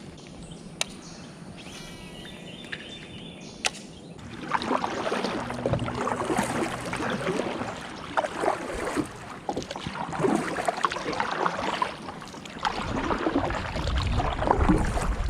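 Kayak paddle strokes splashing and dripping in river water, starting about four seconds in after a few sharp clicks. Wind rumbles on the microphone near the end.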